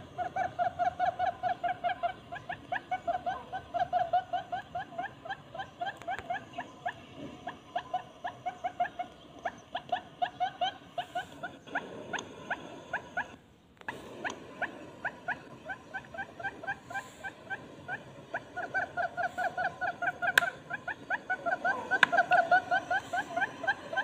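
Barred buttonquail calling: long runs of rapid, low purring pulses, about five a second, with a brief pause about halfway through.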